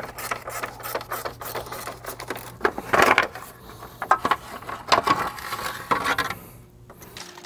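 T25 Torx screws being removed with a driver: a steady whir for the first two and a half seconds or so, with rapid clicking, then three louder knocks or clatters about three, five and six seconds in.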